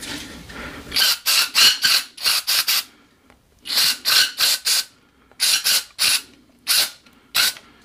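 Aerosol gun-cleaner spray squirted into a pistol barrel in many short hissing bursts, coming in quick clusters with brief pauses between them.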